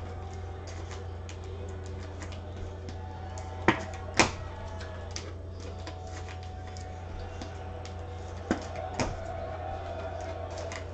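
Sharp knocks on a desk, in two pairs about half a second apart, over a steady low electrical hum.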